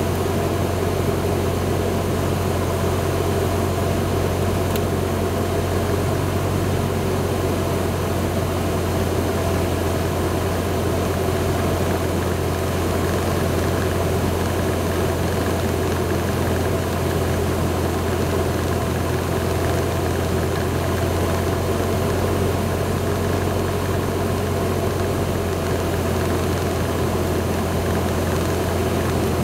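Cessna 172's piston engine and propeller running steadily at unchanging power, heard as a constant low hum inside the cockpit.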